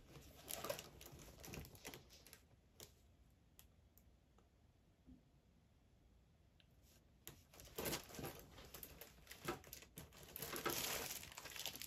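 Faint taps and rustles of things being handled on a table, going almost silent for a few seconds midway, then busier rustling and crinkling of packaging near the end.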